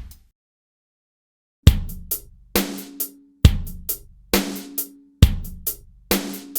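Drum loop playback: a sampled kit pattern cuts off, and after about a second and a half of silence a groove of kick, snare and hi-hat starts, the kick and a ringing snare taking turns with hi-hats in between.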